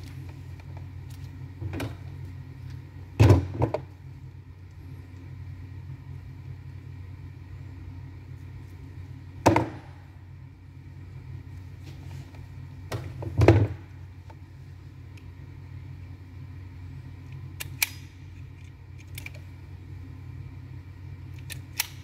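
Handling of speaker wire and hand tools on a workbench: a few scattered knocks and small clicks over a steady low hum.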